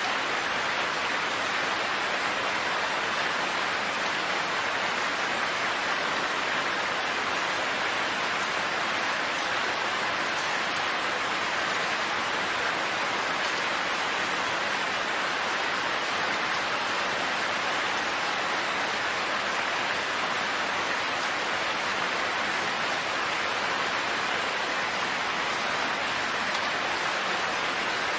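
Steady heavy rain falling, an even dense hiss with no thunder or separate drops standing out.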